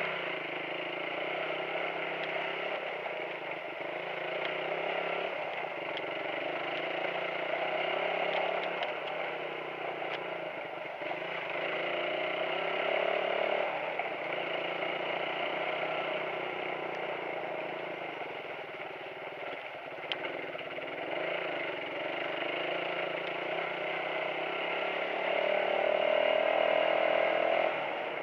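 Suzuki motorcycle engine running while riding a rough rocky, muddy dirt track, its note rising and falling a few times and loudest near the end, with occasional light clatter.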